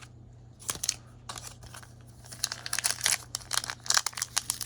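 Crinkling of a foil Pokémon booster-pack wrapper being handled: a string of quick crackles and rustles, sparse at first and much denser from about two and a half seconds in.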